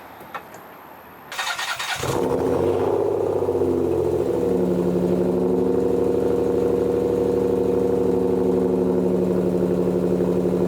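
1991 Nissan 300ZX's 3.0-litre V6 cranked by the starter about a second in, catching about two seconds in, then settling into a steady idle. The ignition misfire is not cured by a donor power transistor unit (PTU), and the engine is still running poorly.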